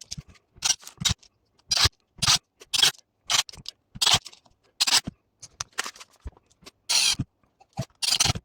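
Short, irregular scrapes and clicks, about one or two a second: parts of a cordless drill/driver's plastic housing being handled and fitted back together.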